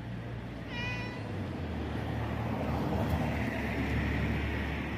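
A stray cat gives one short meow about a second in. Then a road vehicle passes on the street, its engine and tyre noise swelling through the middle and loudest around four seconds in.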